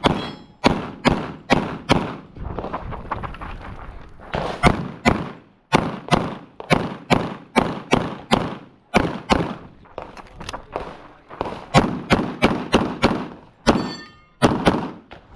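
Rapid handgun fire on a USPSA stage: strings of shots about a third of a second apart, broken by a few short pauses, with a brief ringing tone near the end.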